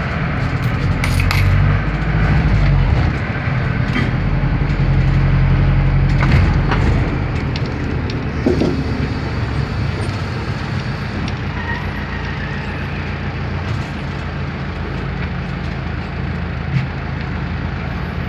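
Minibus engine running and the body rattling as it drives, heard from inside the cabin, with a few sharp clicks and knocks. The engine is louder over the first seven seconds or so, then eases to a lower, steady run.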